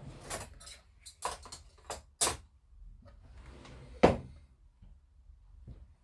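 Handling sounds of plastic model-kit parts: a string of irregular clicks and knocks with some rustling. The loudest knock comes about four seconds in.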